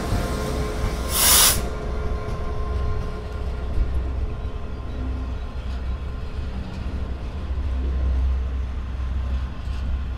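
DB Cargo Class 66 diesel locomotive's engine fading as it goes by, a short loud hiss about a second in, then a long rake of open box wagons rolling past with a steady low rumble of wheels on the rails.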